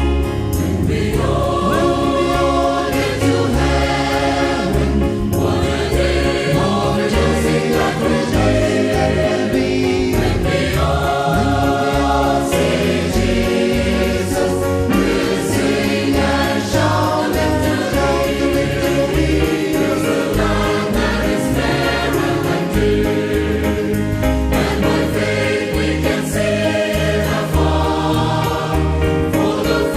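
Choir singing a gospel hymn over a steady low bass accompaniment.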